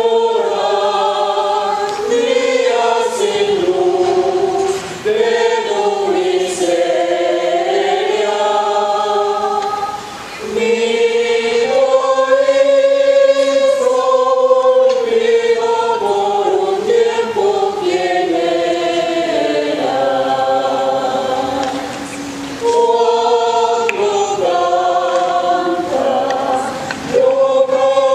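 Mixed choir of men's and women's voices singing a Christmas carol (villancico), in sustained phrases with short breaks between them.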